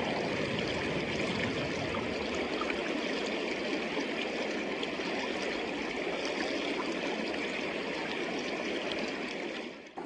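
Mountain river water rushing steadily; the sound cuts off abruptly near the end.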